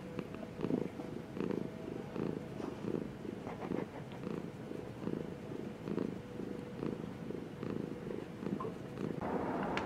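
Tabby-and-white domestic cat purring while it is stroked under the chin and cheek, the purr swelling and easing with each breath. A louder hiss of noise comes in near the end.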